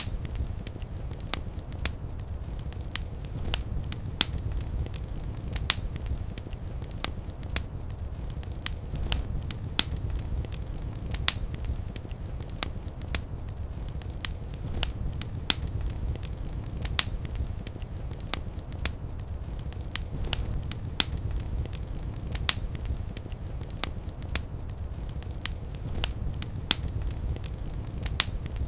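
Fireplace fire crackling, with frequent irregular sharp pops over a steady low rumble of the flames.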